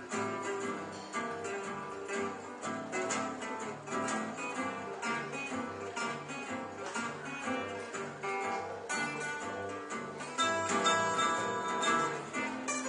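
Gypsy jazz (jazz manouche) played live on two acoustic guitars and a plucked double bass: strummed rhythm guitar and picked guitar lines over a steady bass line of about two notes a second. It gets louder about ten seconds in.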